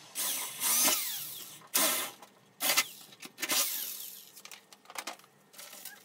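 Cordless drill run on a metal cable tray in about four short bursts in the first four seconds, its motor pitch sliding down as each burst ends. Fainter scattered sounds follow near the end.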